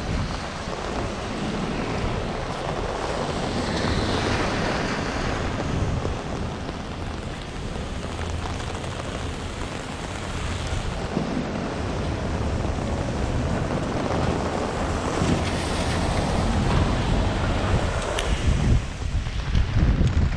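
Strong storm wind gusting over the microphone with a deep buffeting rumble, mixed with the hiss of heavy rain. The gusts swell about four seconds in and again later, growing louder and more ragged near the end.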